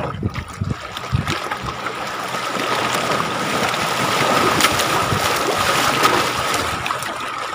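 Water rushing and splashing along the hull of a small moving boat, building up after the first second and easing off near the end, over a thin steady whine. A few knocks sound in the first second or so.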